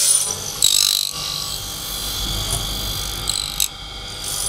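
A uPVC fabrication machine's spindle cutter machining a white uPVC profile. A steady motor sound runs under short, louder high-pitched bursts of cutting noise, about a second in and again near three and a half seconds.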